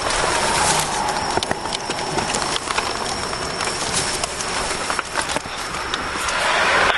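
Steady loud noise of passing road traffic, with scattered clicks and rustles close to the microphone.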